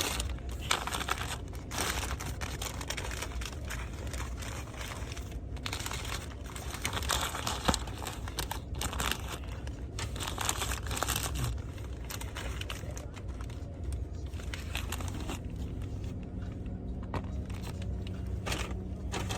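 Paper fast-food wrappers and bag crinkling and rustling in irregular bursts, with some tearing, as a Burger King meal is unwrapped. A steady low hum runs underneath.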